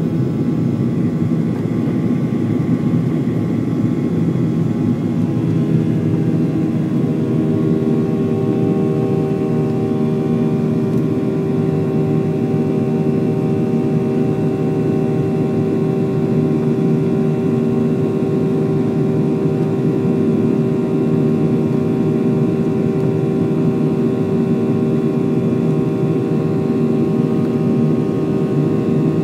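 Steady cabin drone of a Boeing 737-900 at climb power, from its CFM56-7 turbofan engines and the rushing air outside the fuselage, heard from a window seat over the wing. About seven seconds in, a set of steady humming tones from the engines comes up clearer above the drone.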